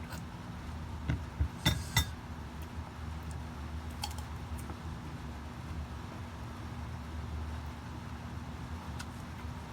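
Several sharp clinks of eating utensils against a dish, bunched between about one and two seconds in, with a fainter one near four seconds, over a steady low hum.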